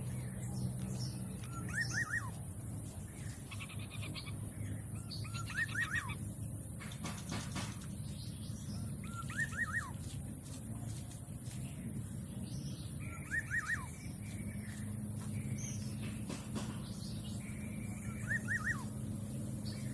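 A bird calling a short burst of three or four quick, falling chirps, repeated five times about every four seconds, over a steady low background hum.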